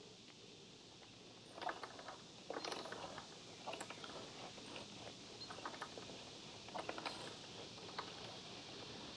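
Slack motorcycle drive chain clicking and rattling on the sprockets in short irregular bursts as the rear wheel is turned by hand: the chain is too loose, outside the green on the adjuster marks. A faint steady hiss sits underneath.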